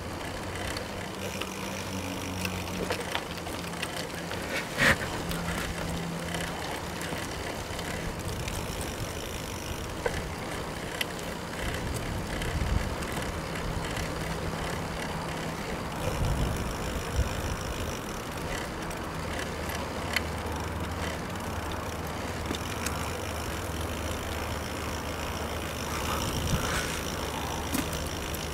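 Giant FastRoad Advanced 1 road bike rolling along a paved path, heard from a handlebar-mounted camera: steady tyre and wind noise with a low hum underneath. There are scattered clicks and rattles from the bike, the sharpest about five seconds in.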